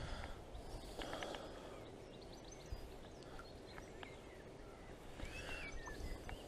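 Faint outdoor ambience: small birds chirping and whistling now and then over a low steady background rumble, with a clearer call about five seconds in.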